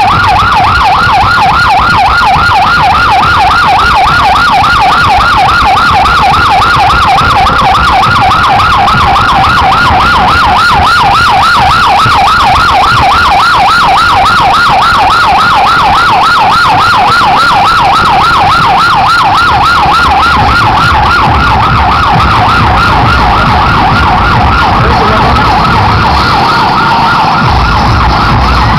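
Police vehicle's siren sounding a continuous fast yelp, its pitch sweeping rapidly up and down several times a second, loud throughout.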